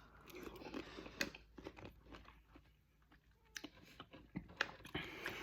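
A person chewing a bite of spice-coated fruit, faint crunching and wet mouth sounds at an irregular pace.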